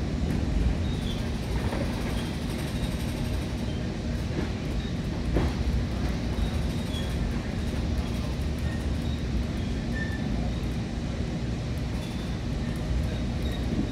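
Metra commuter train heard from inside a Nippon Sharyo bi-level coach while it runs: a steady rumble of wheels on rail with a low hum, and faint short high squeaks here and there.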